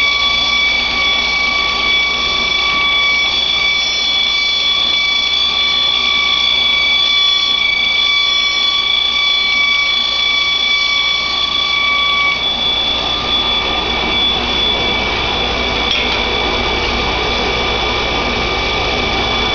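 Belt grinder running with a steady high whine over a rushing grind as a propeller blade is pressed against its abrasive belt, taking metal off the heavier blade to balance the propeller. About twelve seconds in, part of the whine drops away while the grinding rush carries on.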